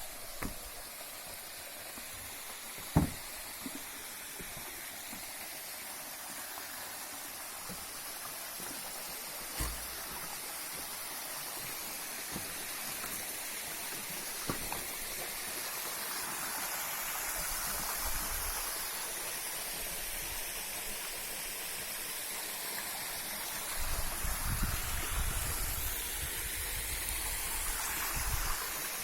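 Water of a mountain stream rushing steadily over rocks, with a few sharp knocks, the loudest about three seconds in, and low rumbling bumps near the end.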